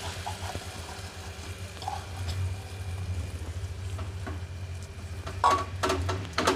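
Thalipeeth batter sizzling faintly on a hot, oiled tawa as it is patted flat by hand, with a few sharp pats and taps of the fingers on the batter and griddle about five seconds in.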